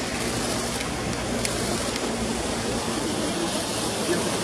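Steady rushing background noise with a faint low hum that fades out in the first two seconds.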